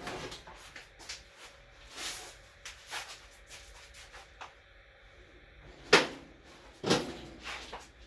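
Sheet-metal car parts being handled and set down: scattered clunks and scrapes, with two sharper knocks about six and seven seconds in.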